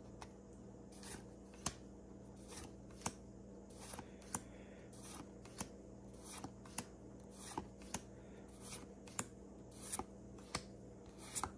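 Pokémon trading cards being slid one at a time from the front of a freshly opened pack to the back, giving faint short card snaps and rubs, one about every half second to a second, over a steady low hum.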